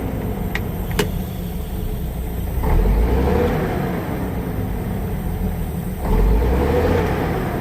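Scania truck's turbocharged diesel engine running and revving up twice, each surge dying back down. There is a sharp click about a second in.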